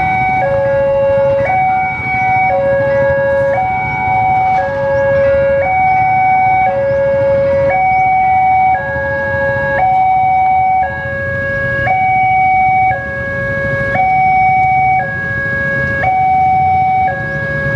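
Electronic two-tone level-crossing alarm sounding, switching between a low and a higher tone about once a second: the warning that a train is coming and the barriers are down. A low engine rumble from waiting motorcycles lies underneath.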